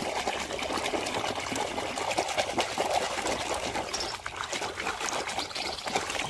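Water trickling and pouring over a muddy toy as it is washed by hand. It is a steady wash of water with many small splashes and drips.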